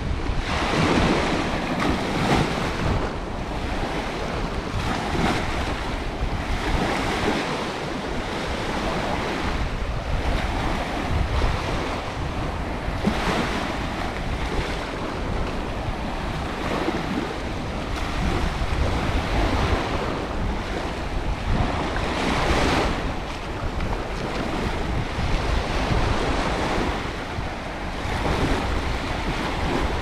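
Aegean surf washing up on a sandy beach, swelling and fading every few seconds, over a low rumble of wind on the microphone.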